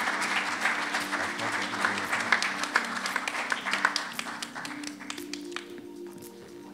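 Audience applauding: dense clapping that thins out and dies away about five seconds in.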